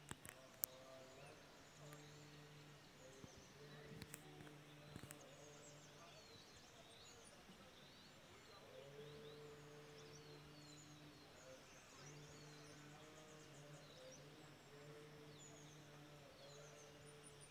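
Faint morning birdsong, many small birds chirping and twittering, over a distant monotone chant of Buddhist prayers: one low voice held on a single pitch in long phrases with short breaks. A few sharp clicks come near the start.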